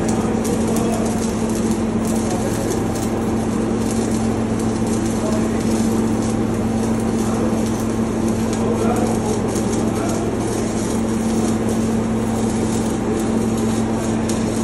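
Electric arc welding on steel, the arc crackling and sizzling steadily without a break, over a constant low machinery hum.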